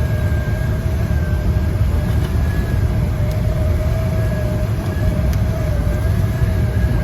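Lennox rooftop HVAC unit running steadily with its new belt-driven blower motor spinning: a low rumble with a steady hum-like tone over it. The motor is drawing about 6.5 amps against its 7.5-amp rating, so it is running within its normal range.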